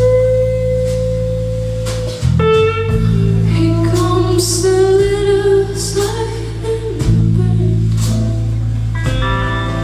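A band playing live: steady bass and guitar chords, with a held melody line of long notes over them that could be a lead guitar or a wordless voice.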